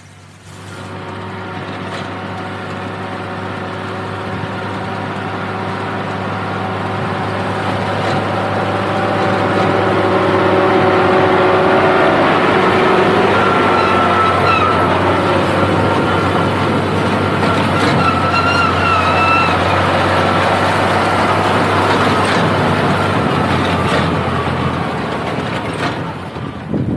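A 480 tractor's diesel engine running steadily under load as it pulls a mounted reaper binder through wheat, getting louder over the first ten seconds as it nears, then holding. A higher whine comes and goes in the middle.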